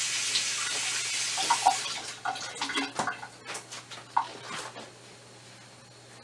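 Cooking liquid in a covered stainless steel pot on high heat, hissing and bubbling. A steady hiss fades after about two seconds into scattered small bubbling pops, which die away near the end.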